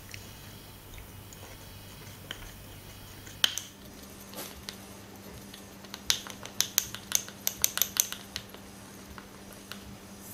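Metal teaspoon stirring corn syrup powder into hot water in a small drinking glass, clinking against the glass: one sharp clink about a third of the way in, then a quick run of clinks for about two seconds in the second half.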